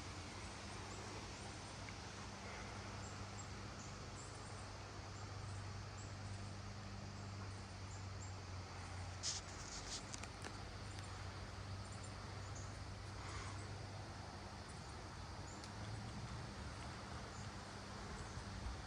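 Steady wind noise outdoors, with a low hum underneath and a few faint clicks about nine and thirteen seconds in.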